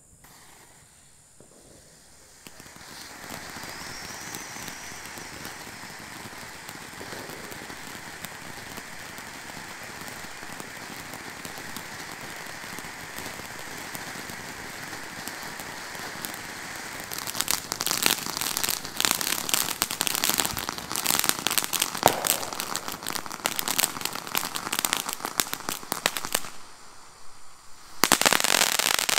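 Ground fountain fireworks: a steady spraying hiss starts about two and a half seconds in, then from about halfway through it turns into dense crackling. The crackling drops away briefly and starts again loudly near the end.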